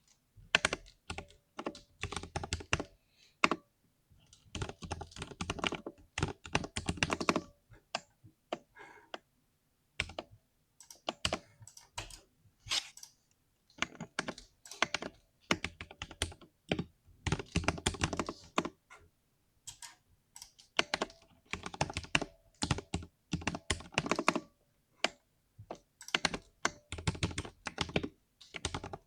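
Typing on a 60% mechanical keyboard with a deep 'thock' keystroke sound, in quick runs of keystrokes broken by short pauses.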